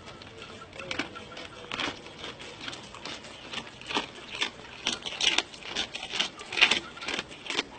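Goat chewing fish: a string of sharp, crisp crunches, coming thicker and louder in the second half.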